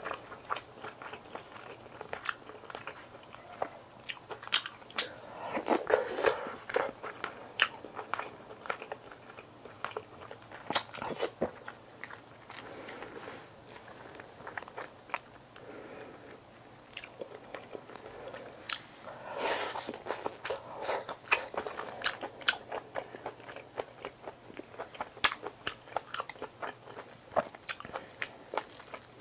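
A person eating close to the microphone: chewing and biting, with many short, sharp clicks at irregular intervals and a brief louder, noisier stretch about two-thirds of the way through.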